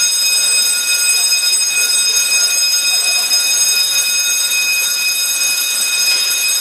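Fire alarm sounder of a PLC-controlled fire alarm system sounding one continuous, steady high-pitched tone, set off by the zone 2 detector test.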